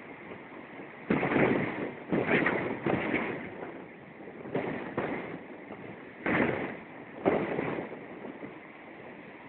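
Heavy surf breaking on the beach: a rushing noise that surges about six times, each surge coming on suddenly and dying away over a second or so.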